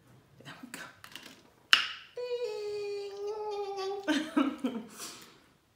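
Small clicks and a sharp snap of a crab leg shell being broken by hand. Then a woman's voice holds one long sung note of enjoyment for about two seconds, sinking a little in pitch, and ends in a short vocal exclamation.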